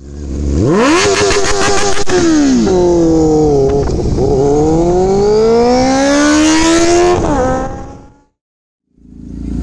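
Motorcycle engine accelerating under hard throttle. The pitch climbs, drops sharply about two seconds in, then climbs steadily for about three seconds before falling away and fading out near the end.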